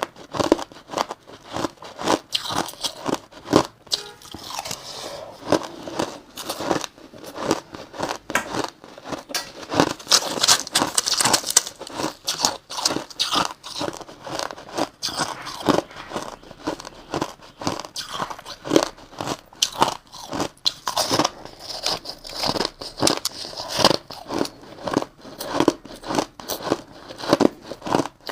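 Close-up crunching of crushed white ice being bitten and chewed, a dense, irregular run of sharp cracks and crackles.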